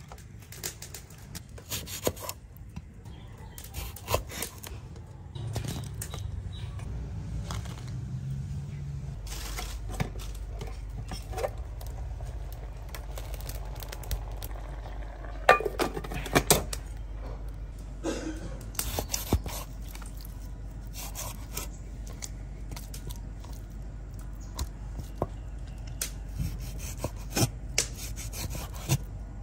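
Close-up food-preparation sounds. Torn green leaves are handled and dropped into a wooden bowl, then a low steady rumble runs under a pot of water heating on a grill. Near the end a cleaver chops raw beef on a wooden board in quick knocks.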